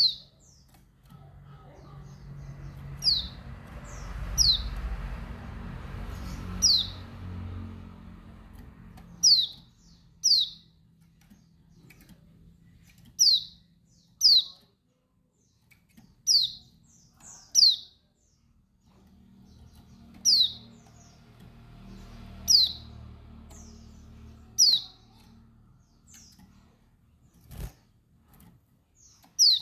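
Female white-eye (pleci dakbal) giving short, sharp, downward-sweeping call notes, one every second or two. This is the female's call that is used to stir male white-eyes. A low rumble rises and fades underneath twice, and there is a single click near the end.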